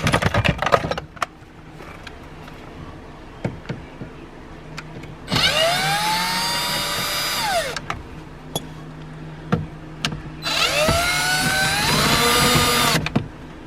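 Electric drill-driver backing out Phillips screws in two runs of about two and a half seconds each, its motor whine rising in pitch as it spins up and falling off as the first run ends. A burst of rattling clicks comes in the first second.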